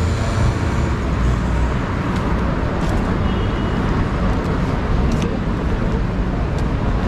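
Street traffic: steady road noise, with a motor vehicle's low engine rumble fading away about a second and a half in.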